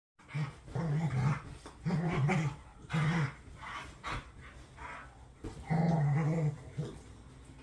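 Dogs play-growling during rough play: four low, wavering growls, with short pauses between them and a longer gap in the middle.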